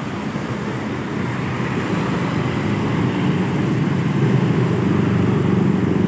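Roadside traffic: vehicle engines running, with the sound growing steadily louder as a vehicle approaches.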